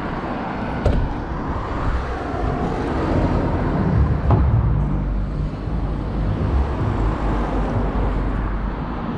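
A motor vehicle running, a steady low engine rumble with road noise. A light knock comes about a second in and another a few seconds later.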